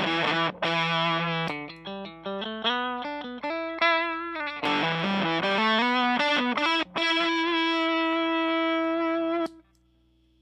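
Electric guitar, an American Stratocaster, played through a homemade Power2 fuzz pedal into a Fender Blues Junior amp: a fuzzy, distorted riff of moving notes and held, sustaining notes. The playing cuts off suddenly about nine and a half seconds in.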